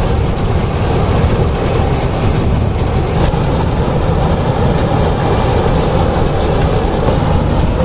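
Rice combine harvester running steadily as it cuts paddy, a continuous heavy machine drone with light rattling in the first few seconds.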